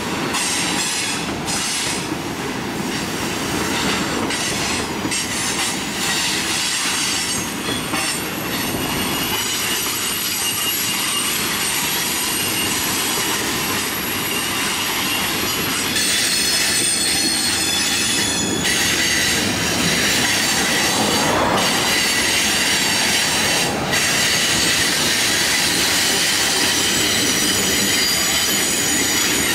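Freight train's steel-wheeled tank cars rolling past, with a steady rumble and clatter under thin high-pitched wheel squeal. A little louder in the second half.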